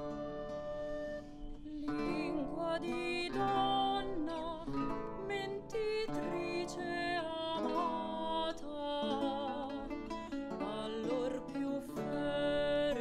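A woman singing an early-Baroque Italian song with vibrato, accompanied by two theorbos and a harpsichord plucking chords beneath her.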